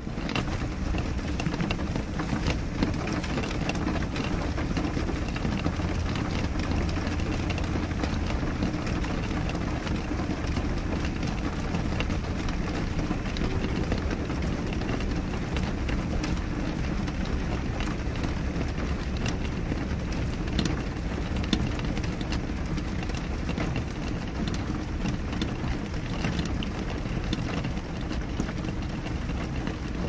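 Steady rain on a window pane: a continuous even rush, heaviest in the low range, with many scattered sharp ticks of drops striking the glass.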